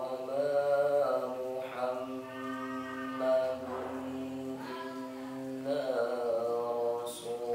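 A boy's voice reciting the Quran in melodic tilawah style, drawing out long wavering notes in phrases. It starts abruptly at the opening.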